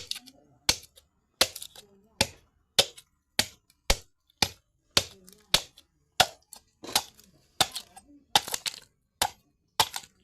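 A blade chopping bamboo: a steady run of sharp, cracking strikes, roughly one every 0.7 seconds, each with a short ring.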